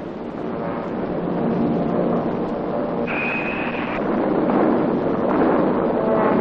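Rumbling roar of bomber aircraft in a wartime air raid, a steady noise that grows louder, with a brief high whistle about three seconds in.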